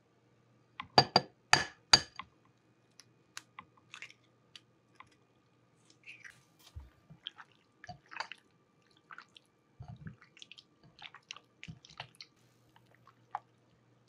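An egg is knocked several times against a glass bowl and cracked open about a second in, the loudest sounds here. Then a bare hand squishes and kneads raw chicken fillet in a wet sour cream and egg marinade, giving soft wet squelches and small clicks.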